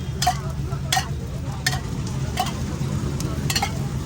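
Metal spatula striking and scraping across a hot dosa griddle in regular strokes, about one every 0.7 seconds, over a steady low hum.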